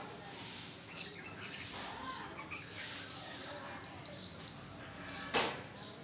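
Red-whiskered bulbul chirping: a few high notes, then a quick run of about eight short, high chirps. A brief rushing noise comes near the end.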